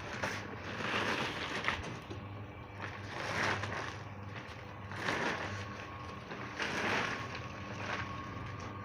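Washing machine churning a load of clothes: a steady motor hum with a swish of water every couple of seconds.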